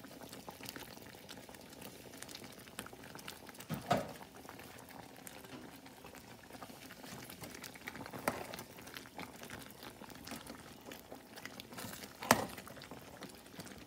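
Chicken meatballs in sauce boiling in an aluminium pot, a steady fine bubbling and popping as the sauce cooks down. A few sharp knocks come through about 4, 8 and 12 seconds in, the last the loudest.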